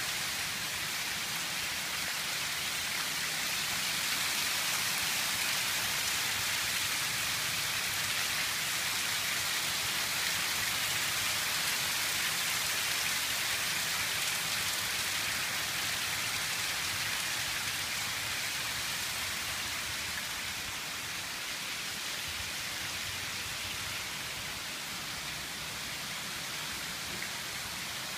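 Steady rain falling, a dense, even hiss that eases slightly over the last third.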